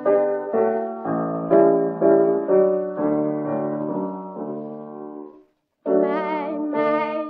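Piano accompaniment on an old 1930s gramophone recording, playing a run of struck chords that die away and stop about five and a half seconds in. After a brief pause, a woman's singing voice enters with vibrato.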